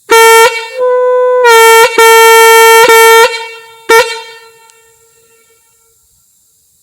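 Leslie Typhon air horn blown on compressed air, very loud, sounding one steady note: a short blast, a longer blast with a few quick breaks, then a final short blast about four seconds in, with the sound ringing away for a second or so afterwards.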